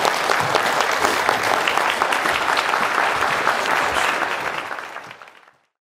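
Audience applauding steadily, the clapping fading out about five seconds in.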